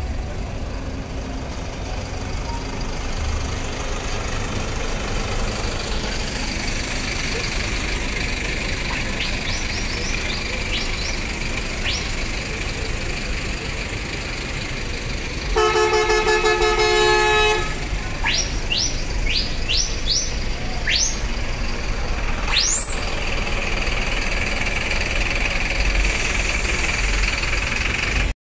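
Buses' diesel engines rumbling as they pull slowly past. About halfway through, a bus horn sounds one steady blast of about two seconds, the loudest sound here. It is followed by a quick run of short rising whistles.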